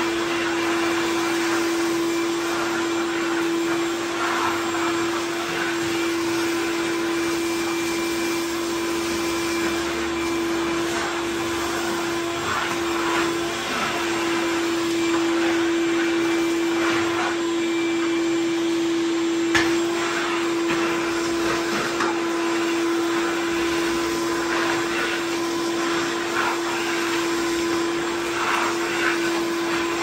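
Ridgid 16-gallon wet/dry shop vacuum running with a steady motor whine. Irregular crackling rattles come as dry leaves and debris are sucked up the hose, with one sharp click about two-thirds of the way in.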